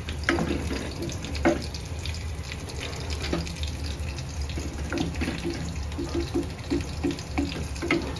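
Water running steadily from a kitchen tap into a sink, over a low steady hum.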